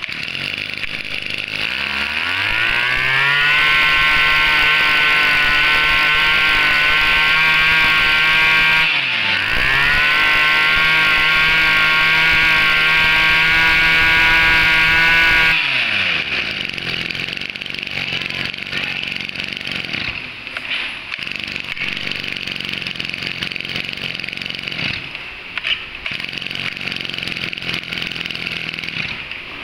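A Yanmar-badged 24 cc two-stroke brush cutter engine is pull-started and catches about a second and a half in. It is revved up to a high, steady speed, drops briefly around nine seconds and revs up again. After about fifteen seconds it falls back to a lower, slightly uneven idle.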